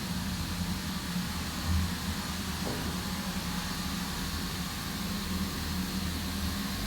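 Sawmill machinery running with a steady low hum under an even hiss.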